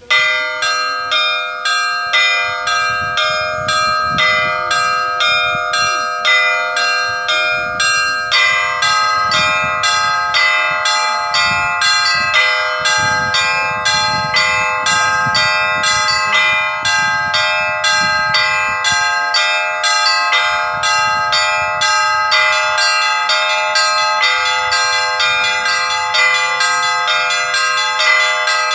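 Orthodox trezvon rung on the bells of a small belfry: several tuned church bells struck together in a quick, continuous repeating rhythm, their tones ringing on between strokes. It forms the trezvon part of a weekday ringing, and the mix of bell notes shifts about eight seconds in.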